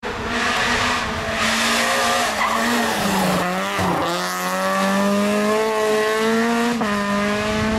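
Peugeot 206 rally car's engine at full stage pace through a bend: the engine note drops as it slows about three seconds in, climbs steadily as it accelerates away, and falls again suddenly at an upshift near the end.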